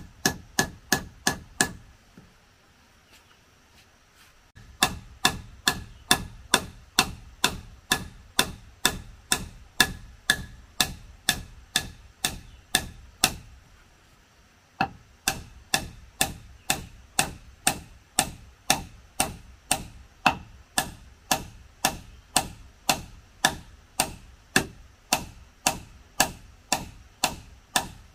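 Steady, rapid blows of a hand tool on wood, about three a second, each with a brief ring. The striking stops for about two seconds soon after the start, resumes, and pauses again briefly midway.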